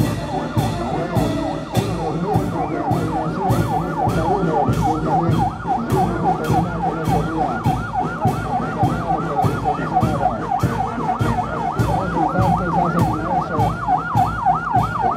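A Toyota ambulance's electronic siren yelps in fast up-and-down sweeps, about four a second, starting a second or two in. A marching band's drum and cymbals beat steadily underneath, about twice a second.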